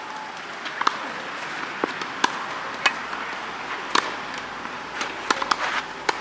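Tennis balls struck by rackets and bouncing during a doubles rally: a series of sharp pops at uneven intervals.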